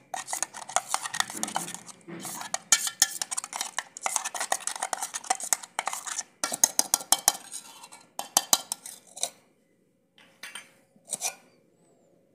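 A metal spoon stirring and scraping wet ground spice paste inside a stainless steel mixer-grinder jar, with rapid clinks against the jar and blade as the paste is loosened with a little water. The scraping stops about nine seconds in, followed by two short clinks.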